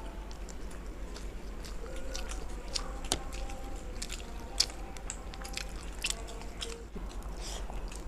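Close-up eating sounds: a person biting and chewing food, with irregular crisp mouth clicks and smacks.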